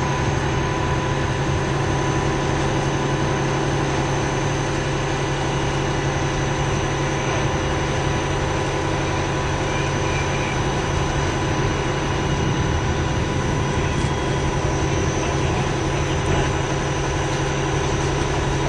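Steady, unchanging drone of a large engine running at a constant speed, with several fixed tones through it.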